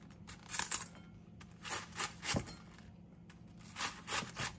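Chef's knife slicing thin shreds off a raw cabbage head held over a bowl: a series of short, crisp crunching cuts in small runs, with a pause near the middle.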